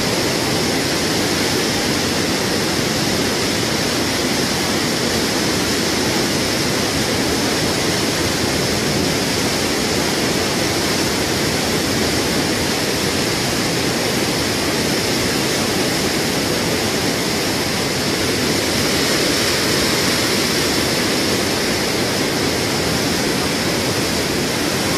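Steady rushing of a fast-flowing muddy river, an even wash of water noise that does not let up.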